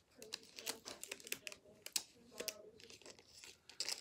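Baseball trading cards being flipped through by hand: a run of light, irregular clicks and rustles as cards slide off one another.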